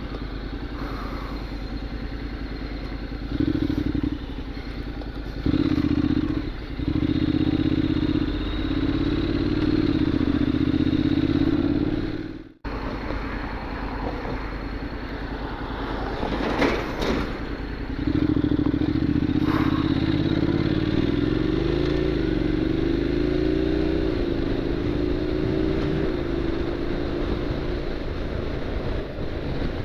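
Honda NC750X DCT's parallel-twin engine idling, then pulling away and running at road speed. Its note rises, then dips and climbs again as it goes through the gears. The sound cuts out briefly about 12 seconds in.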